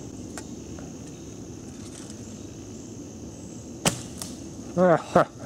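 A recurve bow shot: one sharp snap about four seconds in, followed by a lighter click, over a steady high-pitched drone. A short voice comes in just before the end.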